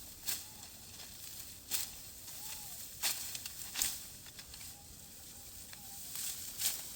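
Dry wheat stalks crunching and rustling, in short, sharp, crisp swishes a second or two apart.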